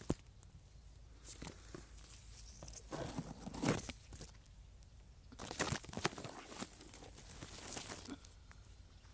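Chilli plant leaves rustling and brushing against the camera as it pushes through the foliage: irregular crinkling and crackling with scattered sharp clicks, in stronger spells a few seconds in and again about halfway.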